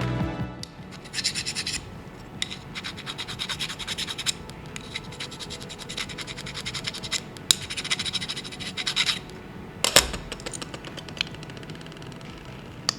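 Grub screw being turned into a metal hole-punch part with an Allen key: repeated bursts of fine, scratchy scraping, with a sharp click about ten seconds in.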